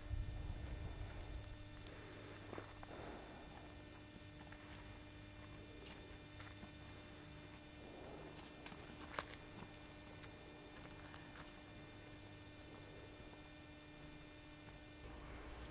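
Faint steady electrical hum, with a low rumble in the first second or so, a few soft scuffs, and one sharp click about nine seconds in.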